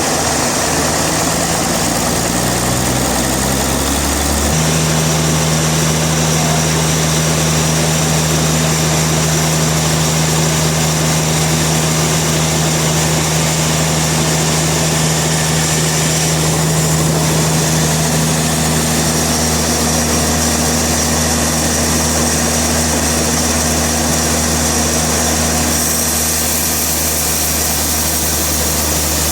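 Heavy machinery running with a loud, steady low hum and a hiss above it. The hum rises in pitch over the first four or five seconds, as if the machine were coming up to speed, then holds steady.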